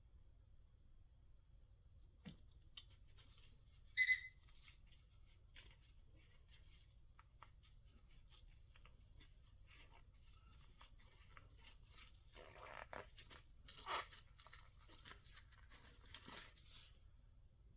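Faint handling noises: scattered rustles and light clicks, with a brief high-pitched squeak about four seconds in and a denser patch of rustling near the end.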